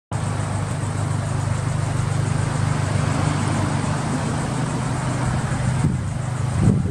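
Mitsubishi Colt Ralliart Version-R's 1.5-litre turbocharged four-cylinder idling steadily through an aftermarket exhaust muffler, a low even hum.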